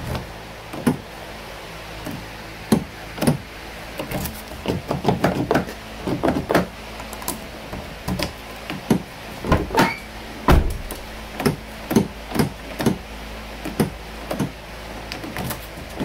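Chevrolet Impala door lock being tested with a key: repeated irregular clicks and clunks as the newly fitted lock cylinder is turned and the door latch and outside handle are worked, with one heavier thump a little past halfway.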